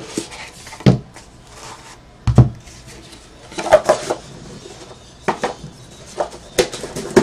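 Trading cards and hard plastic card holders being handled and set down on a table: a run of short clicks and knocks, the loudest about two and a half seconds in, with a quick cluster of them near the middle.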